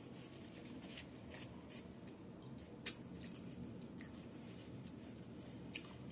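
Paper napkin crinkling and rustling as it is handled and folded, in short crisp crackles with one sharp tick about three seconds in, over faint chewing.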